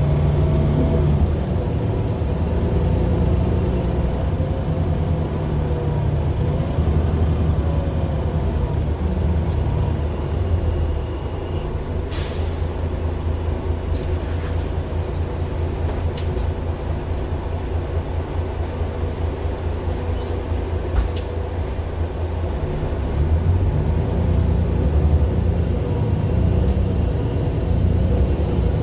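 Mercedes-Benz Citaro LE city bus with its Daimler OM 457 hLA six-cylinder diesel, heard from inside. The engine runs steadily, settles to a lower, quieter running about ten seconds in, with a few sharp air hisses and clicks, then grows louder again near the end.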